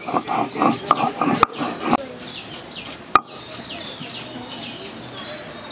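Stone rolling pin grinding garlic on a flat stone slab (shil-nora and pata): rhythmic rasping strokes for about two seconds, ending in a couple of knocks. After that it is quieter, with birds chirping and one sharp knock of stone about three seconds in.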